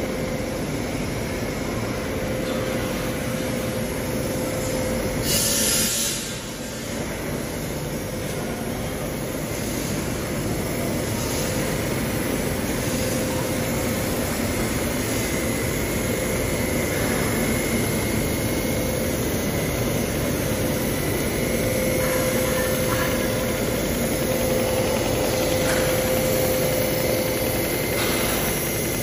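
Steel tube mill line running: motor-driven forming rolls turning steadily, a continuous mechanical rumble with a faint steady hum. A brief hiss about five seconds in.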